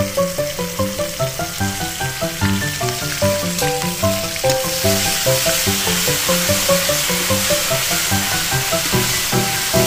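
Sliced onions sizzling as they fry in hot oil in a steel pan, stirred with a spoon, under background music with a steady rhythm.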